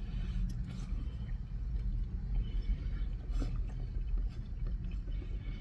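Steady low rumble of a parked car idling, heard inside the cabin, with faint small clicks and mouth sounds of people chewing fried chicken.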